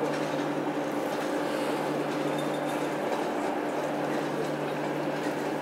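Freight train of covered wagons rolling past slowly: a steady rumble of wheels on rail with a steady hum beneath it.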